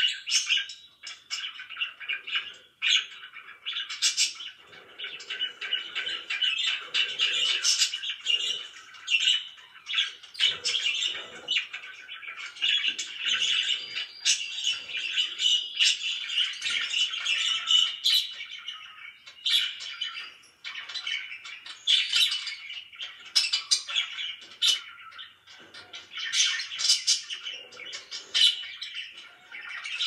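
Several caged budgerigars chirping and chattering together, a busy, unbroken stream of quick, high calls with sharper squeaks scattered through it.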